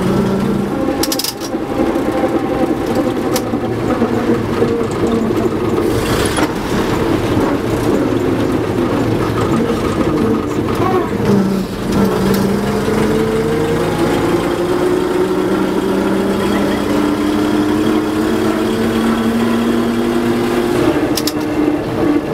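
Engine of a 1927 bus running under way, heard from inside the passenger saloon. Its note dips near the start, drops again about eleven seconds in, then climbs steadily, with a few sharp clatters along the way.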